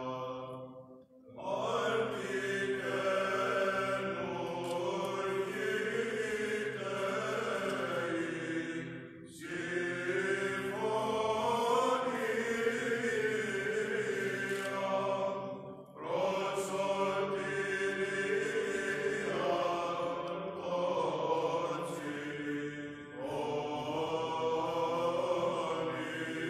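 A small group of male Orthodox chanters singing Byzantine chant unaccompanied, the melody moving over a steady low held note. They sing in long phrases with short pauses for breath, about every seven seconds.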